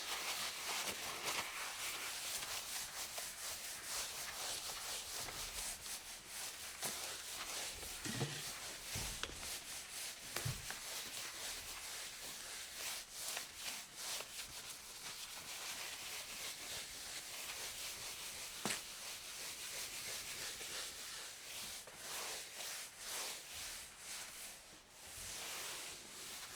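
A cloth wiping a countertop: continuous rubbing and scrubbing strokes over the surface, with a few light knocks along the way.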